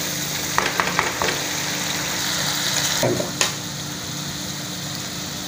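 Onion-tomato masala sizzling steadily in oil in a kadai, with a few clicks of a wooden spoon against the pan about a second in. The masala is fried to the stage where the oil has separated.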